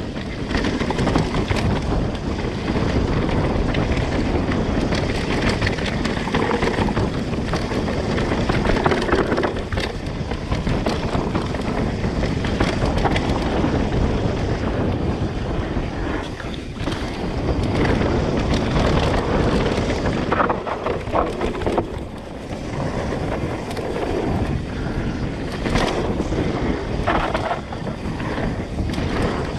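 Mountain bike riding fast down a dirt trail: knobby tyres rolling and skidding over dirt and loose leaves, the bike rattling over bumps with scattered knocks, and steady wind rushing over the camera microphone.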